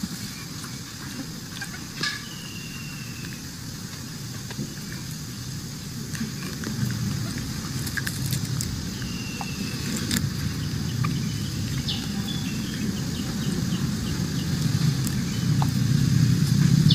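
Low outdoor background rumble that grows louder toward the end, with a few faint clicks and two short, faint high whistles.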